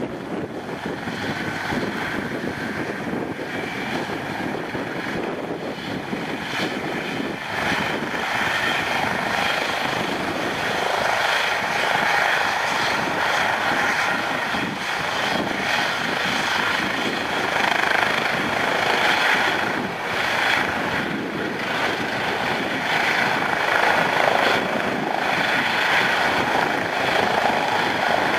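Eurocopter EC135 rescue helicopter's turbines and rotor running on the ground and spooling up for take-off, a steady high whine over the rotor noise. The sound grows gradually louder, and the helicopter lifts off near the end.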